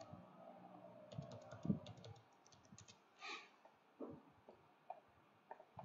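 Computer keyboard typing: faint, irregular keystrokes.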